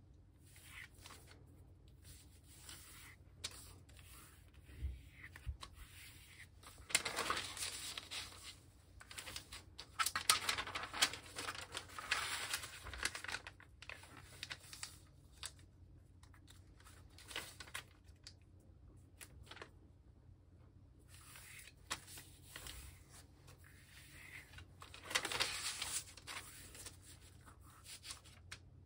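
A large sheet of origami paper rustling and crinkling as hands fold, crease and unfold it. It comes in several bursts, the longest about a third of the way in and another near the end.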